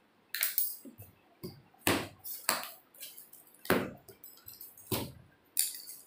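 A box-cutter blade slicing through the packing tape and cardboard seams of a carton: a series of short, sharp scraping strokes at irregular intervals, about half a second to a second apart.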